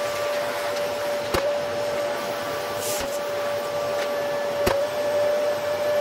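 Vacuum cleaner running with a steady high motor whine as its floor nozzle is pushed across a concrete floor. Three sharp knocks come about a second and a half apart as the nozzle and wand strike the floor.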